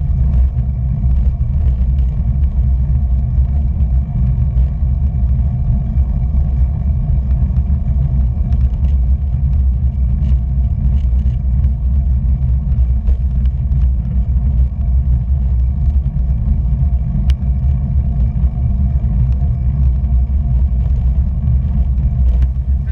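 Steady low rumble of wind buffeting a bike-mounted action camera's microphone while riding, mixed with tyre noise on asphalt, with a few faint ticks.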